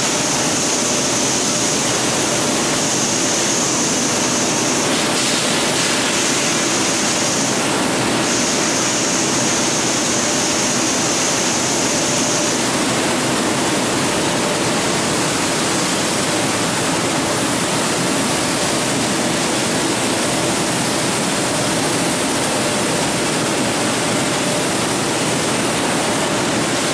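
Steady rushing hiss of high-pressure water spray from car-wash washer wands. A sharper, higher hiss, cut off briefly twice, stops a little under halfway through, while the broad rush of water continues.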